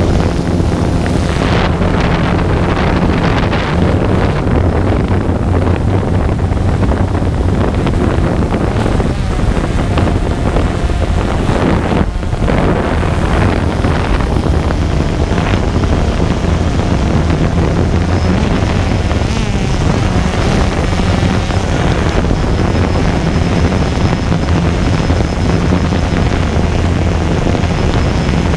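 Quadcopter drone's motors and propellers whirring steadily, heard from the drone's own onboard camera, with wind rushing over the microphone.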